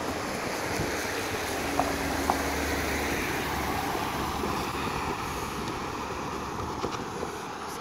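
Cars and a pickup truck driving past on a wet road: a steady hiss of tyres on wet pavement with engine noise, easing off near the end.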